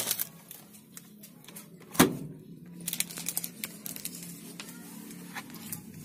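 Paper and plastic parts being handled inside a washing machine's stainless drum: crinkling and rustling, a sharp knock about two seconds in, then a run of small clicks and taps.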